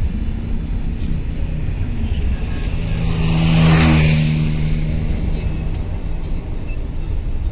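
A motor vehicle passes close by, its engine note and tyre noise swelling to a peak a little past the middle and then fading, over a steady low rumble of traffic.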